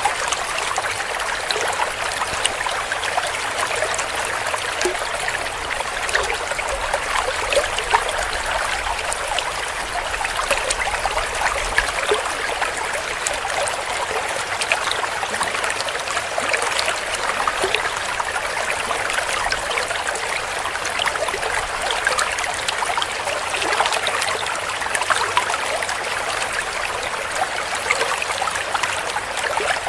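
Clear stream flowing and trickling over stones, a steady babble of small splashes and gurgles.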